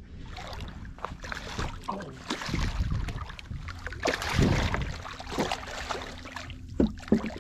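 A hooked fish thrashing and splashing at the water's surface against the side of the boat as the line is pulled in, in irregular surges, with two sharp knocks near the end.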